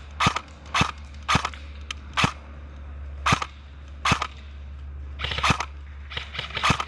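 Airsoft gun firing single shots, about ten sharp snaps at irregular intervals, with a few quick pairs near the end, over a steady low rumble.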